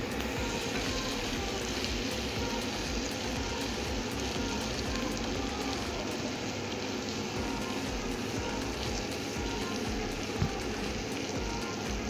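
Beef ribs and tomato sauce sizzling steadily in a stainless steel pan over a gas flame, with a single light knock about ten seconds in.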